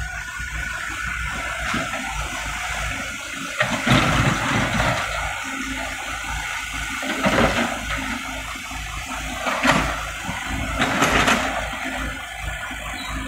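Komatsu PC78US mini excavator's diesel engine running under load, with the steel bucket scraping and scooping broken old asphalt rubble; several louder rushes of scraping, tumbling debris come and go.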